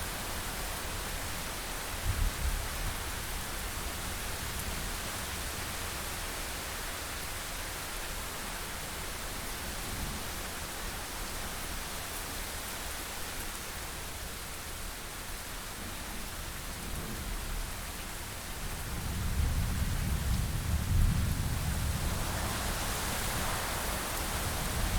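Steady rain hiss, with a short low rumble of thunder about two seconds in and a longer, louder roll of thunder starting about three-quarters of the way through.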